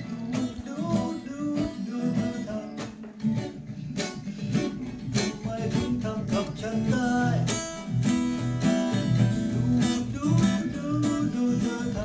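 Music led by a strummed acoustic guitar, with a steady rhythm of strokes.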